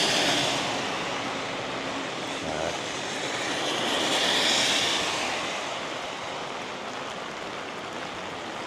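Steady rain on a wet street, with vehicles hissing past on the wet road: one swell at the start and another about four seconds in.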